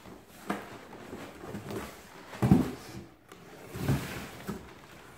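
Cardboard shoe boxes being handled and lifted out of a cardboard shipping carton: rustling cardboard with a few knocks, the loudest about two and a half seconds in.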